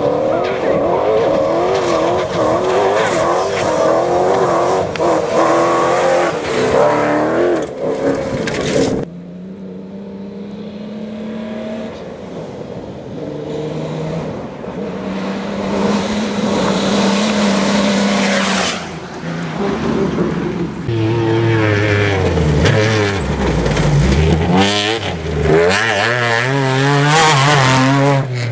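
Rally-raid cars racing past one after another on a dirt stage. The engines rev up and down through the gears, with a dip and rise in pitch as a car goes by.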